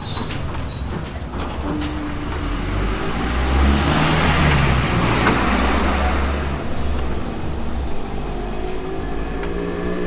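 A motor vehicle passing on the road, its engine hum and tyre noise swelling to a peak about four to five seconds in and then easing off.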